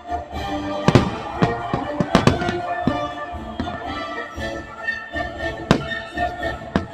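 Fireworks shells bursting with sharp bangs, about eight in a few seconds, several close together near two seconds in, over music playing.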